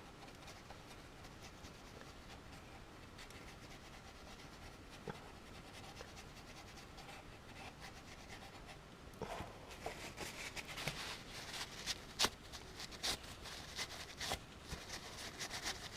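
Wire brush scrubbing old grease off a motorcycle's metal main stand: faint at first, then quick, irregular scratchy strokes from about nine seconds in.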